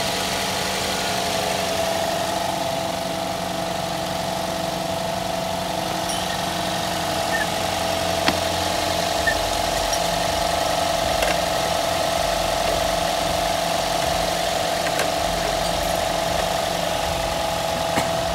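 Toyota Corolla GLi's four-cylinder VVT-i petrol engine idling steadily, with a few light clicks.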